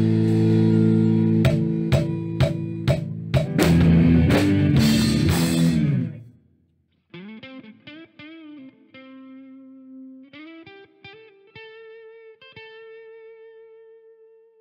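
Live rock band with electric guitars, bass and drums playing a loud closing section, with a string of accented drum hits, then stopping together about six seconds in. After a second's silence, a quieter melodic instrumental passage with sliding notes begins.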